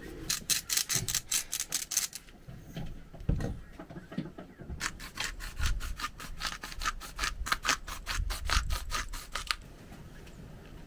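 Hand-twisted spice mill grinding seasoning in rapid crackling clicks, several a second: one short run near the start, then a longer one from about five seconds in to nearly ten.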